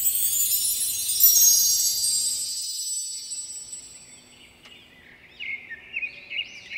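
A shimmering, wind-chime-like sparkle of many high ringing tones sounds at once and fades away over about three seconds. Birds chirp from about two thirds of the way in.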